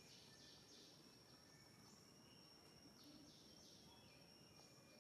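Near silence: faint outdoor background with a thin, steady high-pitched tone and soft scattered chirps.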